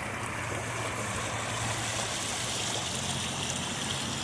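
Small waterfall rushing steadily, with a steady low hum underneath.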